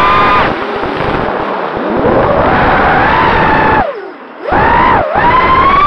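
Four ZMX Fusions 2206 2300kV brushless motors screaming on an FPV racing quad, spinning DAL 5040 three-blade props, with heavy rushing noise underneath. The whine rises and falls in pitch with the throttle and drops off sharply for about half a second about two-thirds of the way in before climbing again.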